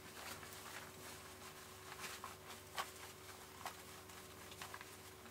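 Heavy cotton canvas anorak rustling as it is pulled on over the head and straightened, in faint, irregular swishes.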